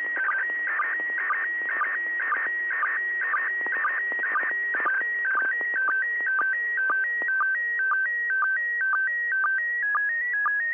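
Slow-scan television (SSTV) image signal from the International Space Station, heard through the FM receiver of an Icom IC-9700. It is a steady electronic warble of tones stepping between two pitches, in a pattern that repeats about twice a second. Under it is radio hiss, with crackles that thin out after about seven seconds.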